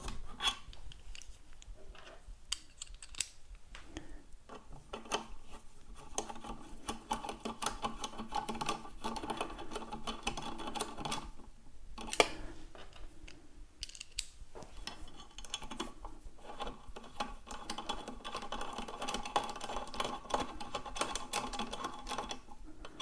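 Small metal clicks and scraping of screws being turned by hand with a screwdriver while an aluminium CNC pedal plate is fitted to an electric unicycle's pedal, with one sharper click about twelve seconds in.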